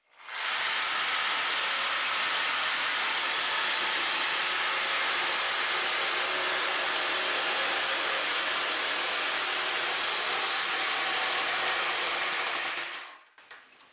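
Chicago Electric corded reciprocating saw running steadily while cutting through a wooden board. It starts just after the beginning and winds down about a second before the end.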